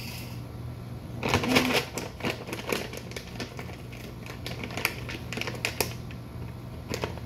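Hands spreading and patting dry paper bedding in a glass mouse tank: a burst of rustling about a second in, then scattered crisp crackles and taps.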